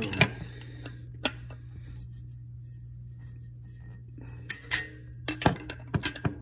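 Metal wrench clinking against the hex of a new oil pressure sending unit as it is given its final tightening into the engine block: a few sharp clicks near the start and about a second in, then a quicker run of clinks in the last two seconds.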